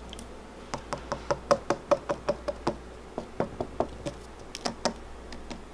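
Fingers tapping on the hard, oven-baked potter's-clay shell around a clay-roasted chicken: a quick run of sharp knocks, about four or five a second, starting just under a second in and lasting some four seconds. The sound shows the clay has baked firm.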